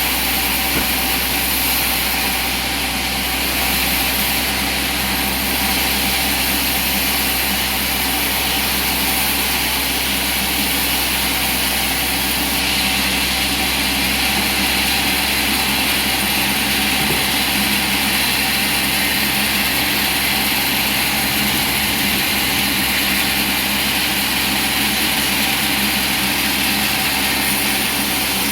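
Steady drone of heavy machinery: an even low hum under a broad hiss, with no distinct cuts, knocks or changes.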